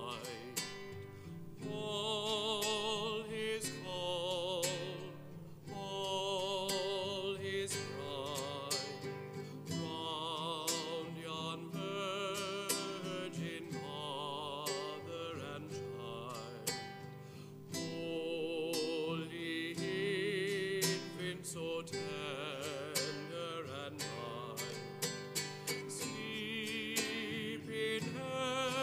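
A carol sung with vibrato to acoustic guitar accompaniment, the guitar plucked or strummed under the held sung notes.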